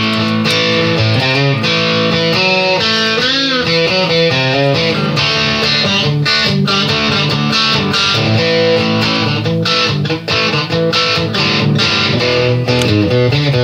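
Background music: an instrumental track led by guitar, with sustained notes and a few bent, wavering notes.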